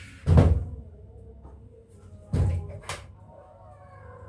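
Two dull thumps about two seconds apart, the second followed closely by a sharp click, over a faint background.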